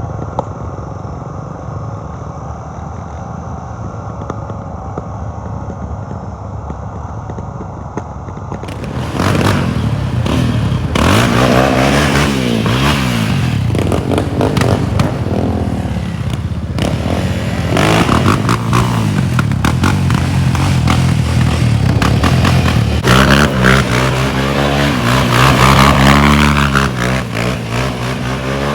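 Motor vehicle engine running, muffled for the first several seconds, then louder and clearer from about nine seconds in, with its pitch repeatedly rising and falling as it revs.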